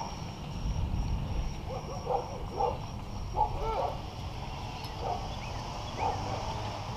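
Low rumble of wind and tyres from a bicycle rolling along a concrete sidewalk, with a dog barking a few times in the distance, mostly between two and four seconds in.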